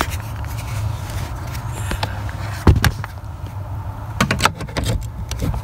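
Hard plastic knocks and clicks of an OBD-II scanner's cable connector being fitted to the diagnostic port under a car's dash: one sharp knock about halfway, then a short cluster of clicks a little later, over a low steady rumble.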